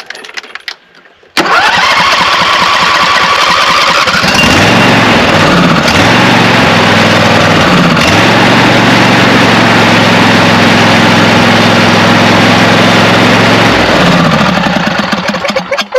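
A 24 hp Briggs & Stratton V-twin on a Craftsman lawn tractor, with the choke held by hand, cranks on its electric starter for about three seconds with a rising whine. It catches and runs steadily, its first start after a carburetor rebuild, and is shut off and winds down near the end.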